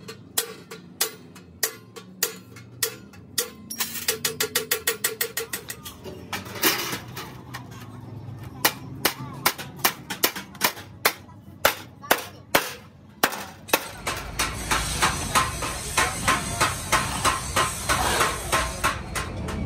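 Hand hammer blows on sheet steel for a truck exhaust silencer, struck one after another with a short metallic ring. About four seconds in there is a quick run of light taps. From about nine seconds the blows come about two a second. From about fourteen seconds a louder steady background noise sits under them.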